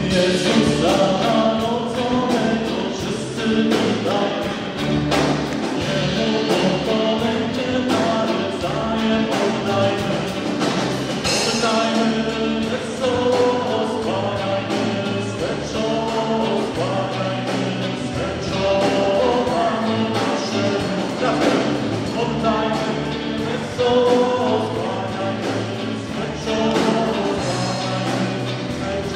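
Live band music: a man singing to his own acoustic guitar, backed by a drum kit with cymbals and a bass guitar.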